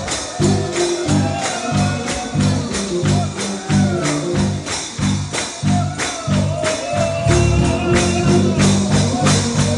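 Gospel music: a singer over a steady, quick beat, with a tambourine shaking on the beat and a bass line.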